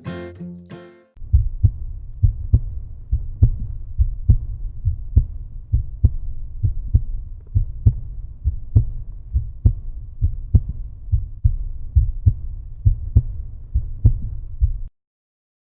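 Outro music: a short plucked bass phrase, then a deep, muffled beat with a strong pulse about once a second, which cuts off suddenly near the end.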